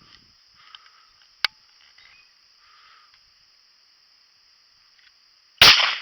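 .410 single-shot shotgun fired once near the end: a single sharp blast followed by a short echoing tail. Before it, a lone sharp click about one and a half seconds in over a faint steady high hiss.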